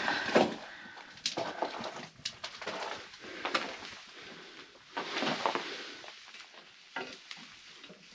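Irregular crunching and scraping of loose concrete and stone rubble underfoot, with knocks of shifting stones.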